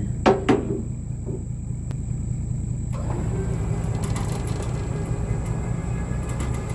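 An engine running steadily at idle, with two sharp knocks just after the start. About three seconds in, a rougher, wider noise joins the engine.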